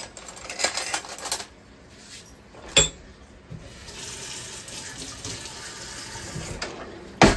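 Kitchen tap running into a sink, first in short bursts and then as a steadier stream. A sharp metal clink comes near the middle and a louder knock near the end.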